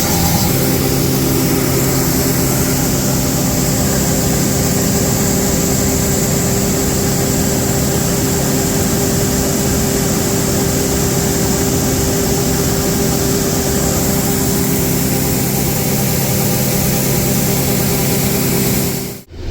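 Combine harvester running steadily with an even engine hum. The sound drops out abruptly for a moment near the end.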